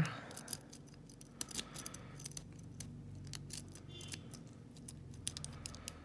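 Steel lock pick raking the pin tumblers of a brass block padlock under light tension: irregular light metallic clicks and scrapes as pins set. A faint low hum runs through the middle, which the picker takes for a motorcycle riding by and beeping.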